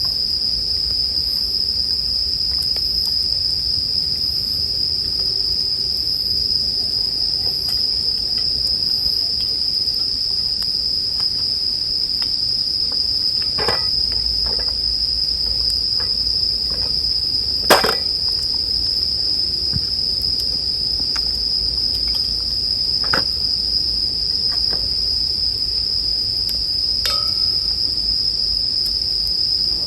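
Bell crickets (suzumushi) singing, a continuous high ringing trill, over the soft noise of a campfire. A few sharp crackles and pops come from the fire, the loudest about 18 seconds in.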